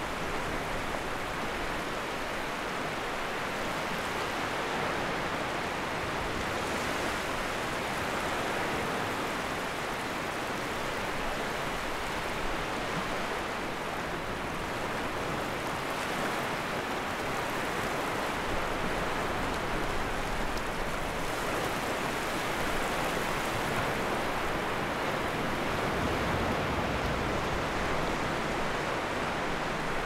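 Sea waves washing onto the shore: a steady rush of surf.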